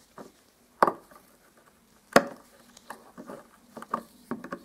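Steel long-nose pliers tapping and clicking against a snapped screw stub and the wood around it while the recess is cleared: a few sharp knocks, the loudest about one and two seconds in, then a run of quicker, smaller clicks near the end.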